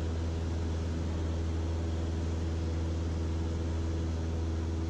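Cessna 152's Lycoming O-235 four-cylinder engine and propeller running steadily at full takeoff power, heard inside the cabin as an even drone.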